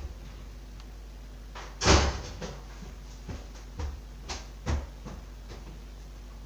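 Knocks and clunks heard over an open phone-call line with a steady low hum: one loud clunk about two seconds in, then several lighter knocks.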